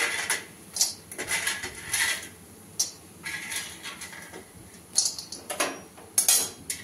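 Hard, dried chana dal adauri pieces scraped off a steel plate and dropped into an aluminium kadhai, giving irregular clinks and clatters of metal. Near the end a metal spatula scrapes and turns them in the pan.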